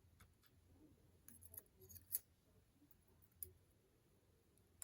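Faint, small clicks and taps of tiny lock parts from a disassembled ASSA 700 cylinder being handled and set into slots, a handful of light ticks with the clearest about two seconds in.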